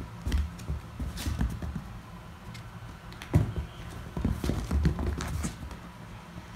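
Kittens' paws thumping and scrabbling on a leather sofa as they pounce and wrestle: a run of soft thuds and claw scratches. The loudest thump comes about three and a half seconds in, and a quick flurry follows about a second later.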